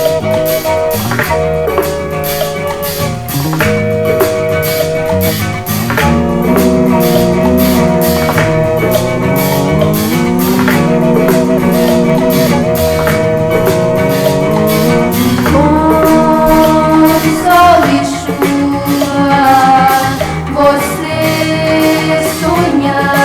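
Brazilian song played from a vinyl record: guitar, bass and drum kit over a steady beat, with a higher melody line entering in the second half.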